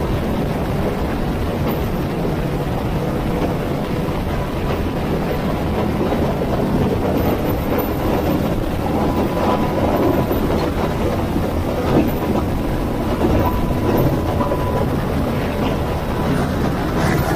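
UH-60 Black Hawk hovering low just overhead: a loud, steady rush of rotor downwash and engine noise, with a faint steady whine.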